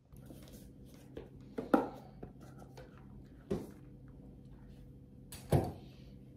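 A few dull knocks and small handling noises from someone handling a tablet and stylus at a desk, over a low steady room hum. The loudest knock comes about two seconds in, a lighter one midway and another strong one near the end.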